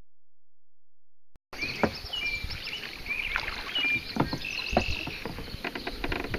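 Dead silence for about a second and a half, then birds calling with short, repeated high notes over the knocks and splashes of kayak paddling on water, with a quick run of knocks near the end.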